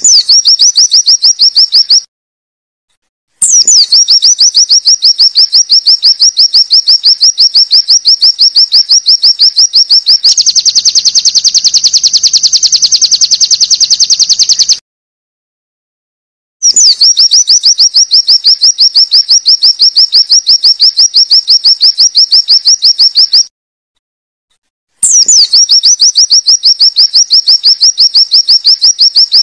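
White-eye (pleci) song: long, very fast trills of repeated high 'wit wit' notes, each phrase opening with a short falling whistle. The phrases last a few seconds, start and stop abruptly, and have brief silences between them. About ten seconds in, the trill turns denser and buzzier for a few seconds.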